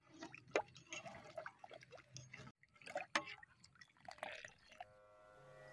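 A metal ladle stirring and scooping thin, hot broth in a metal pot. The liquid sloshes and drips, with two sharp clinks of the ladle against the pot. Soft music comes in near the end.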